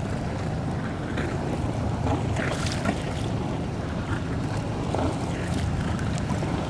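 Wind rumbling steadily on the microphone over water slapping and splashing against the hull of a small boat on open harbour water.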